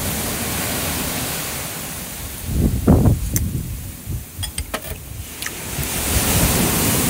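Steady hiss of wind and sea surf on the microphone, with a louder low rumble about two and a half seconds in and a few light clicks after it.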